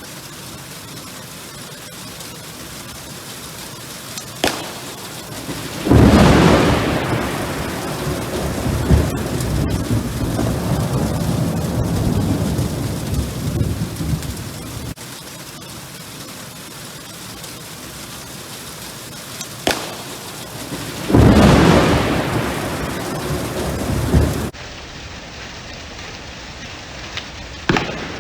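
Steady rain with a close lightning strike: a sharp pop, then about a second and a half later a loud burst of thunder that rumbles on for several seconds. The pop and thunder come again, and near the end the pop sounds once more, slowed down.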